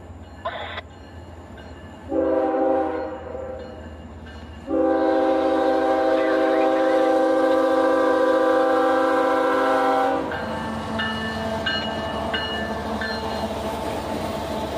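Freight locomotive's multi-chime air horn sounding for a grade crossing: a short blast about two seconds in, then one long, loud blast of about five seconds. After that, the rumble of the locomotive rolling through the crossing.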